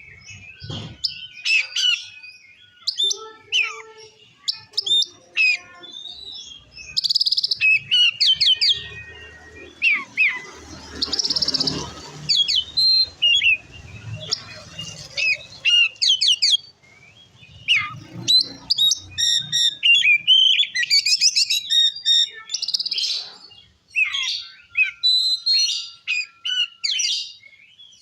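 Oriental magpie-robin (kacer) singing a long, varied song of clear whistles, pitch glides and rapid chattering trills, with barely a pause. A stretch of low rustling noise runs under the song in the middle.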